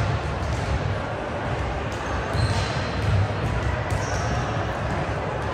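Indoor volleyball match: ball thumps and short high sneaker squeaks on the court floor, over a busy background of crowd voices.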